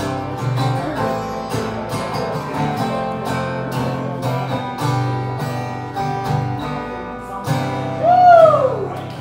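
Acoustic guitars strumming the closing chords of a folk song. Near the end a voice holds a last note that slides down in pitch, the loudest sound in the stretch.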